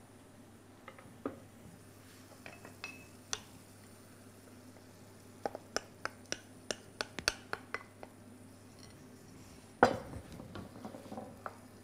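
Light clinks of a utensil against a glass mixing bowl as beaten eggs are poured into a frying pan, with a quick run of about a dozen clinks midway. One louder knock comes near the end.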